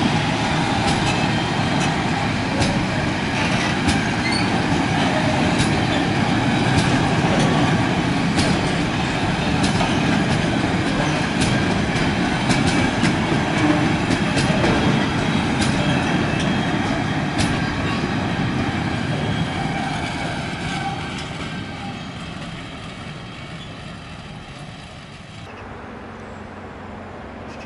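A freight train's sliding-wall covered wagons rolling past close by, their steel wheels clattering over the rails with many sharp clicks. The sound fades as the train draws away, then drops suddenly to a much quieter background near the end.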